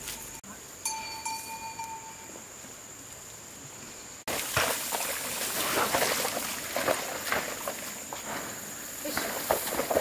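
Footsteps and rustling through wet soil and cut rice stalks as a water buffalo pulls a wooden plough, an uneven run of soft crunches and clicks starting suddenly a little over four seconds in. About a second in, a brief held ringing tone sounds once.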